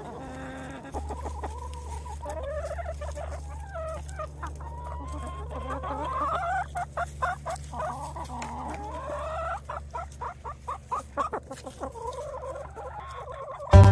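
A flock of hens clucking and calling, with many short overlapping rising and falling calls and a run of quick sharp clicks in the middle, over a steady low hum.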